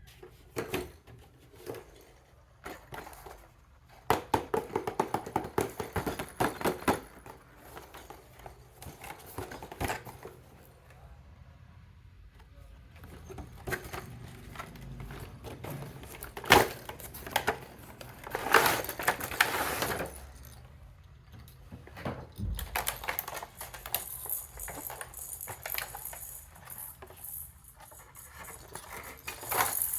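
Plastic baby rattle toy shaken in irregular bursts with short pauses between them: a fast run of rattling strokes early on, single sharp clicks, and a longer, hissing rattle near the end.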